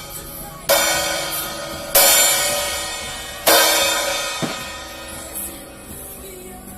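A Nebulae 14-inch crash cymbal struck three times, about a second and a half apart, each crash ringing out and fading slowly before the next.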